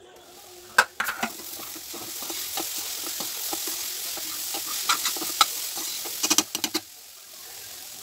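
Grated cauliflower sizzling in a hot pan as a spoon stirs it, with sharp knocks of the spoon against the pan about a second in and again near the end. The sizzling stops a second before the end.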